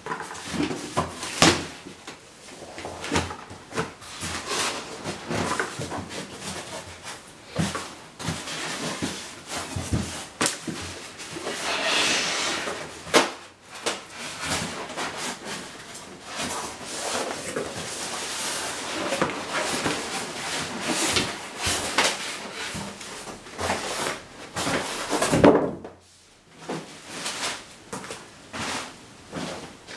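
Polystyrene foam packing blocks, cardboard and plastic wrap being handled: irregular knocks, scrapes and rustling, with one loud knock near the end.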